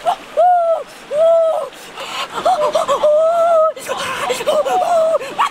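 A boy crying out without words in high-pitched wails: two short cries, then a longer drawn-out one around the middle, and more near the end.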